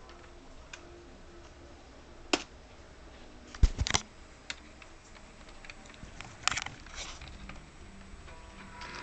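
Scattered clicks and knocks from a handheld camera being handled as it is swung from the monitor down to the keyboard, the loudest a quick cluster of knocks about halfway through.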